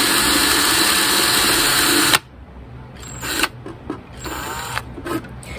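Cordless drill with a 1/16-inch bit running steadily as it bores a small hole through a mandolin's thin wooden top, stopping abruptly about two seconds in. A short, quieter burst and a few light clicks follow.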